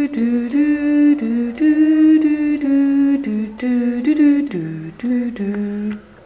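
A single voice humming a tune a cappella: a string of about a dozen held notes stepping up and down, standing in for the film's theme music. It stops just before the end.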